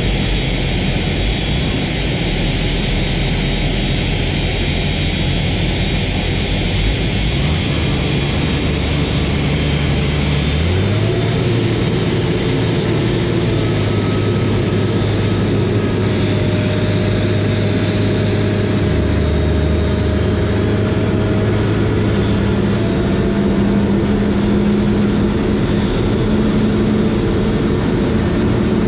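Towbarless aircraft tug's engine running, its hum stepping up in pitch twice in the first dozen seconds as it lowers the A380's nose gear and reverses slowly away, over a steady jet-engine hiss and whine.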